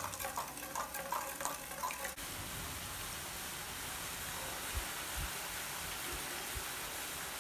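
Drops of gram-flour batter falling through a perforated ladle into hot oil, each popping and sizzling as it hits. After about two seconds this turns into a dense, steady sizzle from a panful of frying boondi, with a few soft low knocks in the second half.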